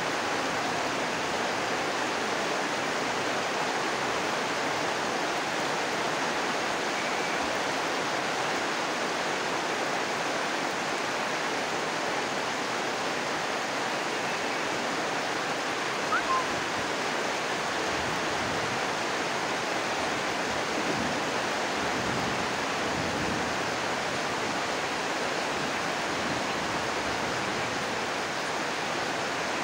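Steady, even rushing noise, with one brief sharp sound about sixteen seconds in.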